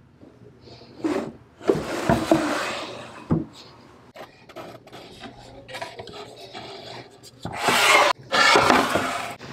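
Wooden dresser drawers sliding in their runners, wood rubbing on wood, with a sharp knock about three seconds in as a drawer shuts. Near the end, louder scraping of wood on wood as round wooden turntable boards are slid on a slatted wooden shelf.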